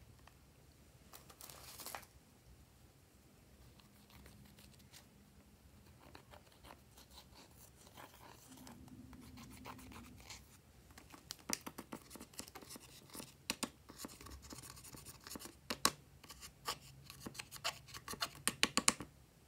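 Pressed eyeshadow being scraped and crumbled out of its palette pans with a small tool: dry scratching with many sharp little clicks and crackles, sparse at first and dense through the second half.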